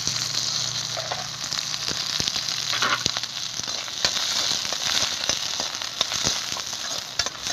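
Small onions sizzling in hot oil in a kadai, a steady frying hiss, with a steel spatula clicking and scraping against the pan as they are stirred.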